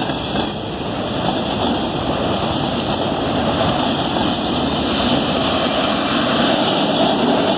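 Freight train's autorack cars rolling past, a steady rumble of steel wheels on rail.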